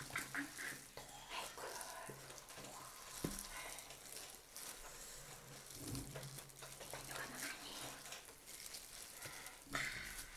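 Soft, wet eating sounds of Samyang spicy instant noodles being lifted with plastic-gloved hands, slurped and chewed, with a single light knock about three seconds in.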